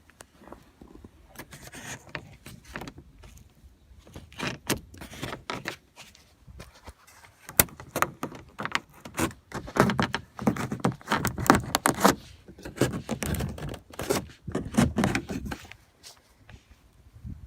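Plastic inner door trim panel of a 2003 Chevrolet Silverado being pried off little by little: a run of clicks, snaps and rattles of plastic, busiest in the second half.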